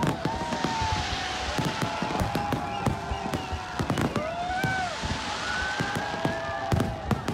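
Aerial fireworks going off in a dense display: a rapid, uneven run of bangs and crackles, several a second.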